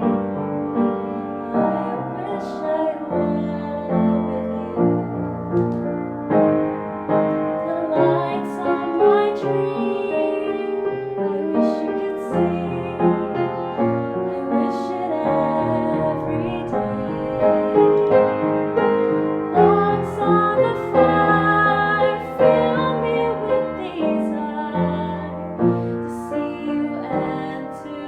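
Piano music: slow chords that change every second or two, with a wavering melody line above them.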